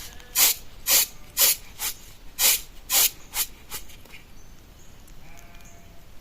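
A run of sharp swishing bursts, about two a second, over the first four seconds, then a faint sheep bleat about five seconds in.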